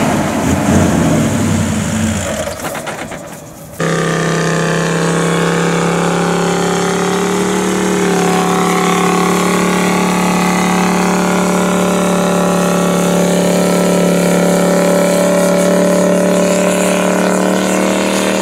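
Toyota Land Cruiser 70-series engine revving up and down, then fading. About four seconds in it cuts abruptly to the engine held at steady high revs while a rear wheel spins in deep sand, the truck bogged.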